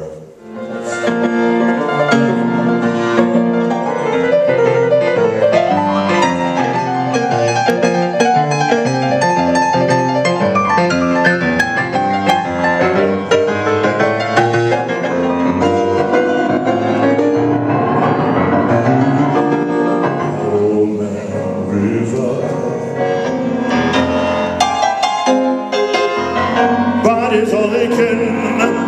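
Jazz played on a grand piano, with a man singing over it in places.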